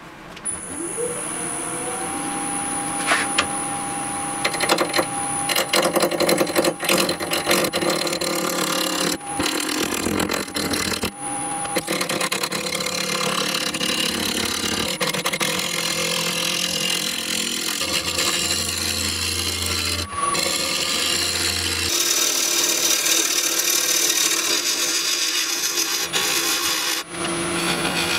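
Wood lathe spinning up with a rising whine that settles to a steady pitch, then a roughing gouge cutting a square elm burl and epoxy resin blank. The cutting is harsh and choppy at first and becomes a steadier rough shaving noise as the blank turns round.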